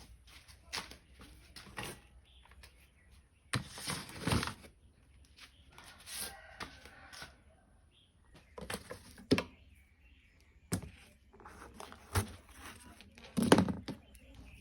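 Irregular sharp snaps and knocks, about ten spread out, the loudest about four seconds in and near the end, with short rustling noises in between, consistent with an airsoft BB gun being fired and its pellets striking fruit.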